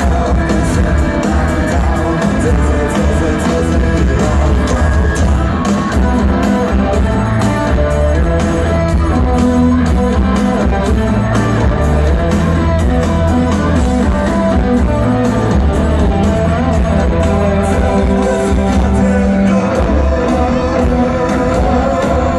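Rock band playing live through a stadium PA: loud distorted electric guitars, heavy bass and a steady drum beat, recorded from the crowd.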